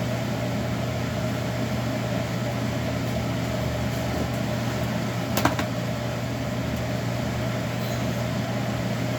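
Steady low hum of a running electric motor, unchanging throughout, with a single short click about five and a half seconds in.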